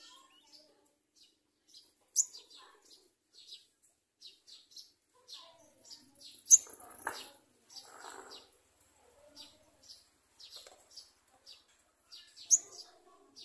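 Sunbird chirping: a steady run of short, high, thin chirps, broken by three louder sharp calls about 2 s in, midway and near the end. A brief low rustle or knock comes midway.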